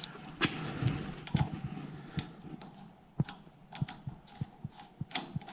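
Scattered light clicks and knocks at irregular spacing, a few a second, with one louder knock about three seconds in: handling noise from tools and parts.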